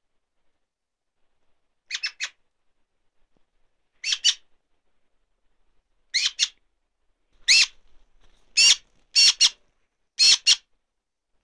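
Young Eurasian magpie calling: about seven short calls, each made of two or three quick pulses, coming roughly every two seconds and closer together in the second half. These are a fledgling's begging calls, given with its beak gaping wide.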